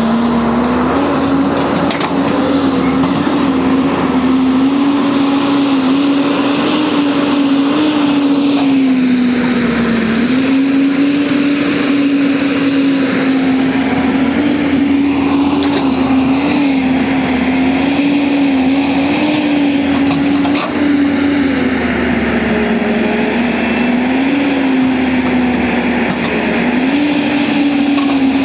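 Excavator's diesel engine running steadily at working speed over broad mechanical noise. Its pitch sags and recovers several times under changing load, most clearly about ten seconds in and twice near the end.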